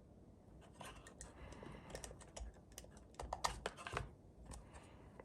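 Faint scattered clicks and taps from a small plastic key-programmer device being handled and a connector being plugged in, with a cluster of sharper clicks about three to four seconds in.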